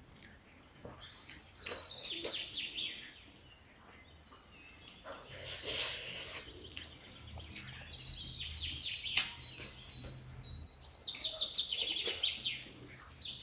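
Small birds chirping and twittering in short high phrases, with a fast run of rapid trilled notes near the end.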